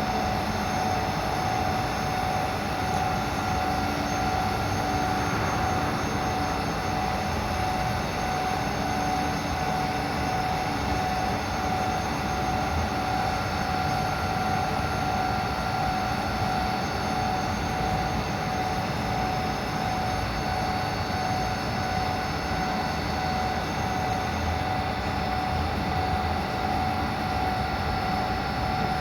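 FIL FA 130 CNC milling machine running steadily, with a constant whine over an even mechanical noise.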